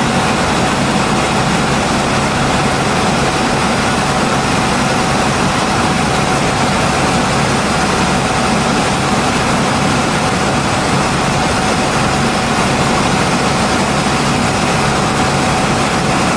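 Helicopter in flight heard from inside the cabin: a steady, loud drone of engine and rotor with a constant whine over it.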